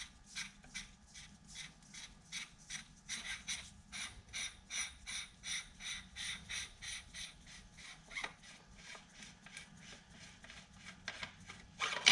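Threaded outer sleeve of a Leone quiet barrel being unscrewed by hand, its threads rasping in short repeated strokes, about three a second.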